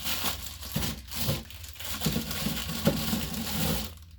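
Plastic packaging crinkling and rustling as groceries are handled, with a few light knocks, stopping just before the end.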